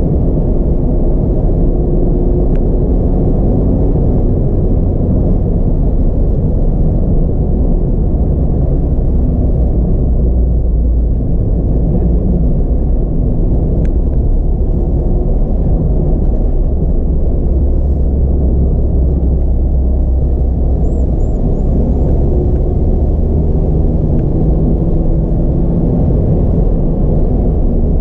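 Mazda MX-5 RF being driven, heard from inside the cabin: a steady low rumble of its four-cylinder petrol engine and tyre noise on the road.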